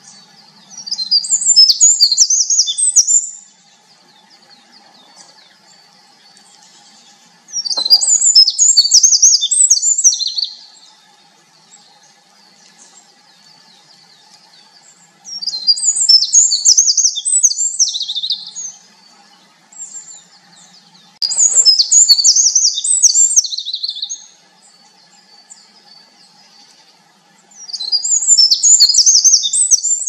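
Winter wren singing: five bursts of rapid, high-pitched trills and warbling notes, each about two to three seconds long, coming roughly every six seconds.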